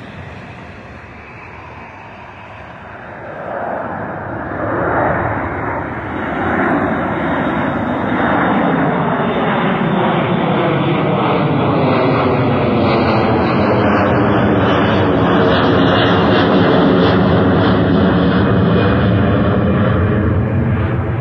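Twin-engine jet airliner passing low overhead: the jet engine noise swells about three seconds in and stays loud, with a whooshing sound that sweeps in pitch as the aircraft goes over.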